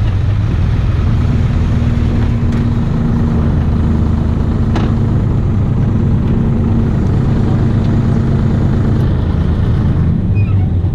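An engine running with a steady low rumble; a steady hum rises above it about a second in and fades out near the end.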